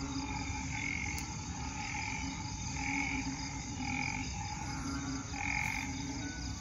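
A breeding chorus of banded bullfrogs (Asian painted frogs) calling after heavy rain, overlapping calls coming about once a second. A steady low rumble runs underneath.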